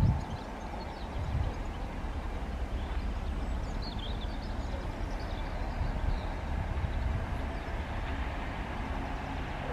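Low, steady rumble of an approaching train, with a few faint high chirps near the middle.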